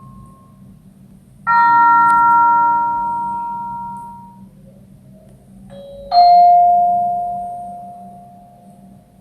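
Slowed-down Samsung Galaxy S25 Plus notification tones: a bell-like chime of several tones strikes about a second and a half in and rings out over about three seconds. A second, lower chime strikes about six seconds in and rings out until near the end.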